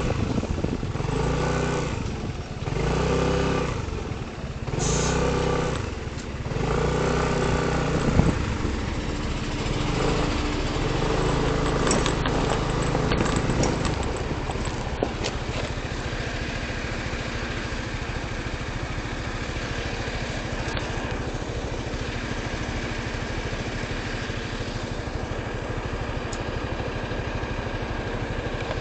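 An engine revved several times in quick succession, each rev swelling and dropping back. After several seconds it settles to a steady running hum.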